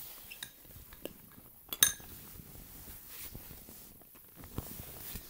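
Metal spoon stirring thick slime in a ceramic bowl, with soft scraping and a few clinks against the bowl. The loudest is a sharp, ringing clink about two seconds in.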